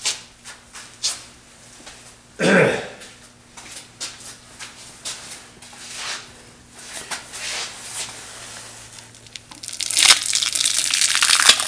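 Small taps and scrapes of a chisel working the joint between a heavy jatoba cutting board and its waste block, with one louder knock about two and a half seconds in. Near the end comes a long crackling, tearing rasp as the joint gives way and the board is worked loose.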